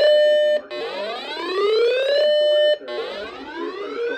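Electronic whooping alert tone: a buzzy tone that glides up in pitch over about a second and a half, holds for a moment, cuts off and starts again, repeating about every two seconds. It is used to alert stations on the North Texas Emergency Alert System relay before a weather warning is read.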